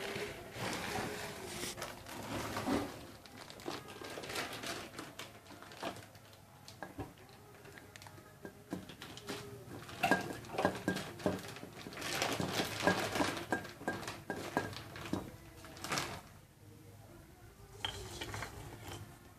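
Dishes and kitchen utensils being handled, with scattered clinks and knocks and a few short stretches of hissing noise.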